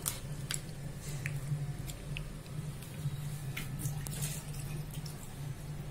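Wet squelching and soft drips of a hand mixing chicken pieces through a thick green masala and curd marinade in a steel bowl, in scattered short squishes over a steady low hum.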